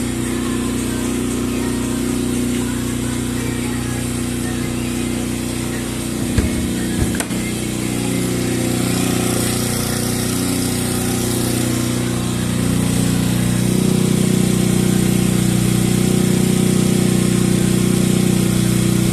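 A-iPower A2000IS petrol inverter generator running steadily, with a few knocks about six to seven seconds in. Around two-thirds of the way through, its engine note shifts and it runs a little louder.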